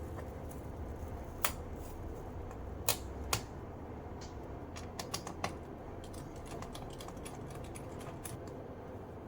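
Scattered sharp clicks and light taps of hands and tools working on a laptop's case: a few single clicks, then a run of quick faint ticks, over a low steady hum.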